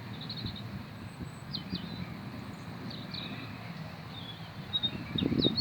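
A steady, low distant rumble in the sky of unknown origin, with small birds chirping briefly many times over it. Louder low gusts of noise come in near the end.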